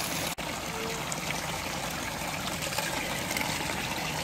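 Cold mountain spring water running and trickling steadily, with a momentary break just after the start.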